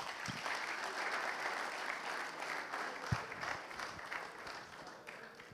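Audience applauding, dense clapping that gradually dies away near the end.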